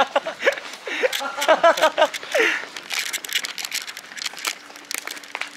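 Men laughing and exclaiming in short bursts during the first couple of seconds, over many quick knocks and scuffs of footsteps and a handheld microphone being jostled while walking fast.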